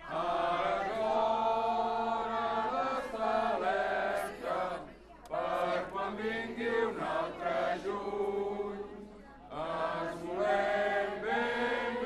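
A large crowd chanting together in unison in long, held phrases, with short breaks about five and nine seconds in.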